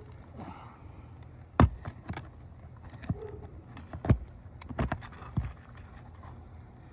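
Steel flat bar prying a roofing nail up from under an asphalt shingle: about six sharp metallic clicks and knocks, the loudest about one and a half seconds and four seconds in.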